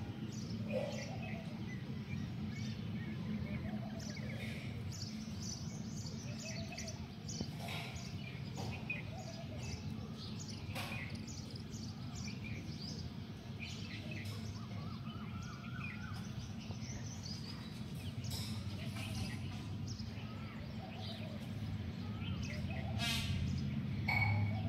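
Assorted birds chirping and calling in short, scattered notes, with a quick trill near the end, over a steady low hum.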